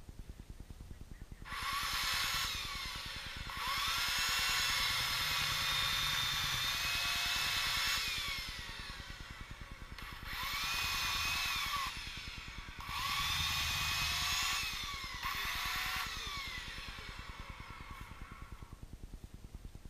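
Power saw cutting, run in about five bursts between a second and several seconds long, each whining up to speed at the start and winding down at the end.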